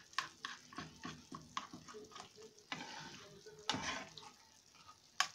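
Spoon stirring thick flour-and-tomato gravy in a small frying pan: quick, irregular scrapes and taps against the pan, with one longer scrape about four seconds in. The gravy is stirred fast so that the flour does not form lumps.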